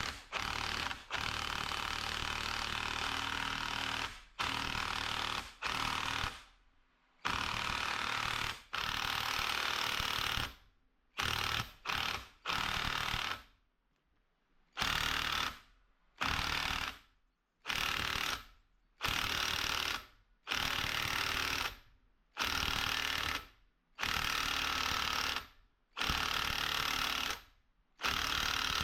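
Impact tool run in many short bursts of about a second or two each, stopping and starting, while driving a control-arm bushing into place with a bushing press tool.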